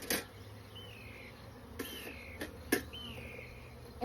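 Honeybees buzzing around an open hive in a low, steady hum. A few sharp clicks of handling equipment cut through it, and a short high chirp that falls in pitch repeats about once a second.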